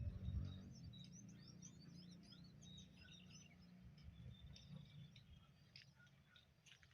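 Faint chirping of small birds: a quick run of many short high chirps in the first few seconds, then a few scattered faint calls, over a low steady rumble.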